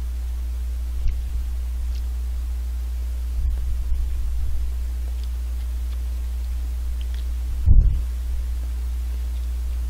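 Steady low hum under a light hiss. Soft low bumps come about three and a half to four and a half seconds in, and one short thump near the end.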